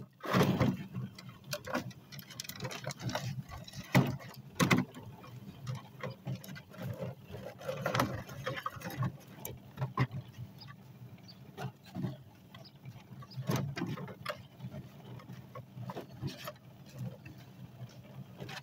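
Hoover L1400 push spin sweeper rolling over a driveway, its brush roll sweeping grass clippings into the hopper, with irregular clacks and knocks over a steady low drone.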